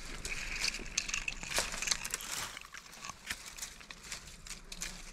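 Dry twigs and dead leaves crackling and snapping in a string of short, sharp crackles as tangled dry brush is handled.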